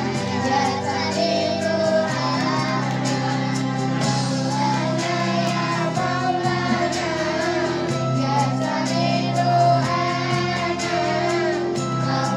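Three young girls singing a song together through microphones and a PA, over a music accompaniment of held chords with a steady beat.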